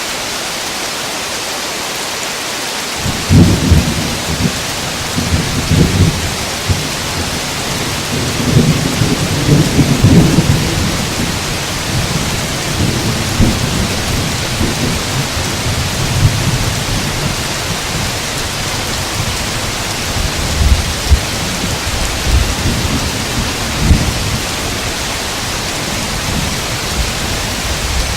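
Steady rain with rolling thunder. Low rumbling starts about three seconds in, swells to its loudest around ten seconds in, then keeps rumbling more faintly with a few louder peaks near the end.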